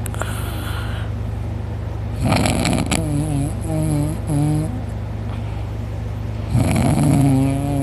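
A man snoring loudly, two long snores about four seconds apart. Each starts as a harsh rattle and goes into a wavering, voice-like drone. A steady low hum runs underneath.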